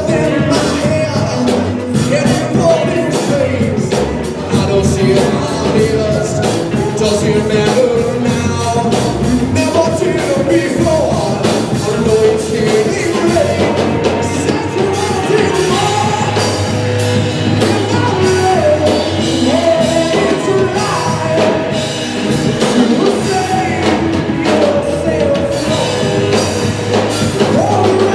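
Live rock band playing loud, with a drum kit, guitars and a singer's voice, heard from within the audience.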